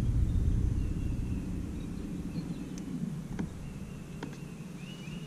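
Bow-mounted electric trolling motor running, a low hum that fades over the first three seconds, with a couple of light knocks on the boat deck and birds chirping.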